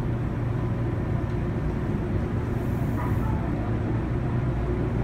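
Steady low rumble and hum inside a Meitetsu train car, with a brief faint hiss about three seconds in.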